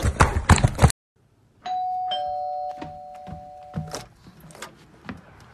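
Two-tone doorbell chime: a higher ding, then a lower dong, both ringing out and fading over about two seconds. Before it comes a second of loud rustling clatter that cuts off abruptly.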